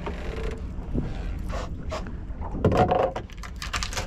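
Steady low rumble of a fishing boat, with sharp knocks, scrapes and rattles of gear being handled on deck, loudest in a thump just under three seconds in.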